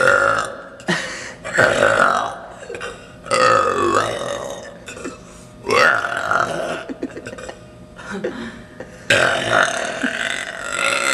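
A woman burping loudly, one long belch after another: about five in all, each lasting around a second, with a longer pause before the last one about nine seconds in.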